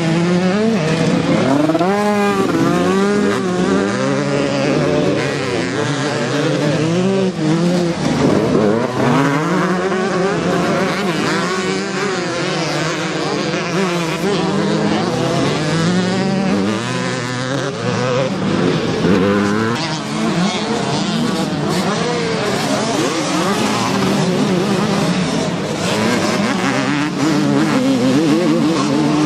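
Several motocross bikes racing past, their engines revving up and down in overlapping rising and falling whines as the riders open and close the throttle and shift.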